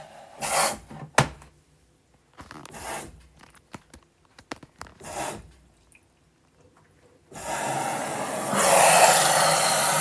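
LG direct-drive front-loading washing machine starting its wash cycle: a few soft swishes as the drum turns, then about seven seconds in water starts rushing into the machine with a steady hiss that grows louder a second later.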